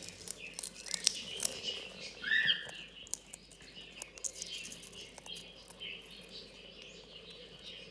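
African grey parrot shelling peanuts with its beak: irregular sharp cracks and crunches of the shells, mixed with soft chirps and a short rising chirp about two and a half seconds in.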